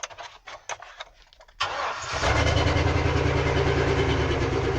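After a few faint clicks, a 2003 Chevy Silverado 2500's 6.0-litre V8 cranks about a second and a half in, catches and settles into a steady idle. It runs with a noticeable miss, the random misfire logged as code P0300, which the owner hopes is the coil packs.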